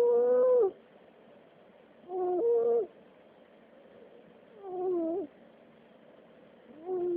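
Sleeping cat snoring with a squeaky, whining tone on each breath: four short pitched snores, each under a second and about two and a half seconds apart, the pitch dipping at the end of each.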